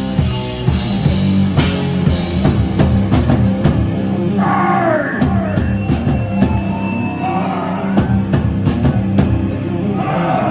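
Rock band playing loud and live: a pounding drum kit and a heavy bass line, with a few gliding high notes about halfway through and again near the end.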